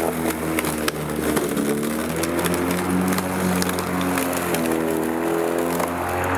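Black & Decker 36V cordless electric lawn mower running, its motor and blade humming steadily; the pitch sags about a second and a half in and climbs back around five seconds, with a few light clicks on top.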